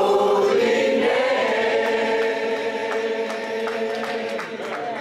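Church congregation singing a hymn a cappella, many voices together, settling onto a long held chord that slowly fades.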